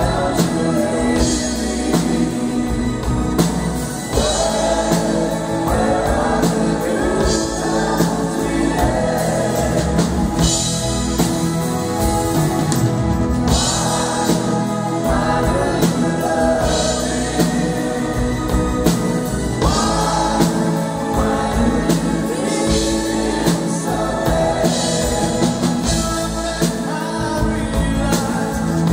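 A pop band playing a song live, with acoustic guitars and drums under several voices singing together.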